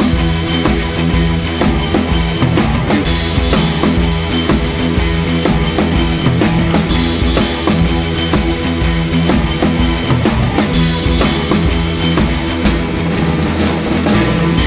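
Background music: a rock track with a steady drum-kit beat.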